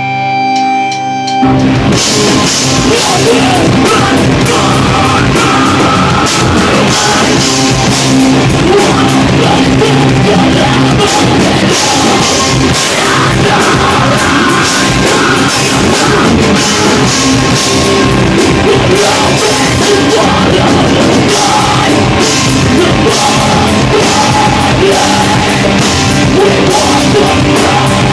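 A rock band playing live on electric guitars and drum kit: a few held notes ring for the first second and a half, then the full band comes in loud and keeps playing steadily.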